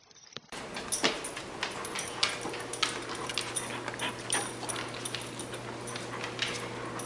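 A Walker hound moving about on a hardwood floor, its claws clicking and tapping irregularly, over a steady low hum.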